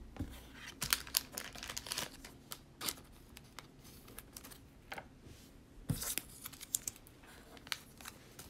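Football trading cards being flipped through by hand, with the crinkle of foil trading-card pack wrappers: a string of soft, irregular clicks and rustles, a little louder about six seconds in.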